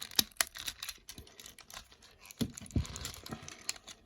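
Hard plastic parts of a small Transformers action figure clicking and rattling as its panels are unclipped and folded by hand: irregular sharp clicks, the loudest near the start, with a few duller knocks past the middle.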